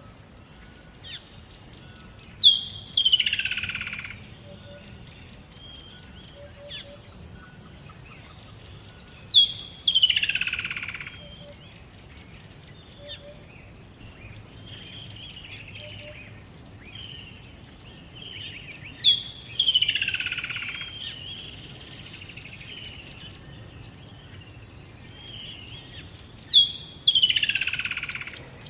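Birds singing. One bird repeats a loud phrase four times, about every seven seconds: a sharp high note, then a falling sweep lasting about a second. Softer chirps come in between.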